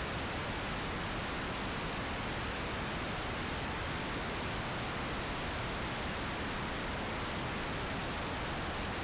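Steady, even rush of airflow and engine noise on a camera mounted outside a jet in flight, with no distinct tones and no changes in level.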